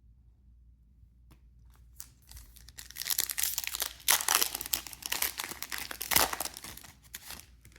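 A foil trading-card pack being torn open and its wrapper crinkled. The crackling starts about three seconds in and lasts some four seconds.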